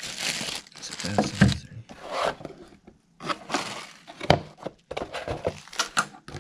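Plastic bag rustling and cardboard packaging scraping as items are lifted out of a box, with a few sharp knocks.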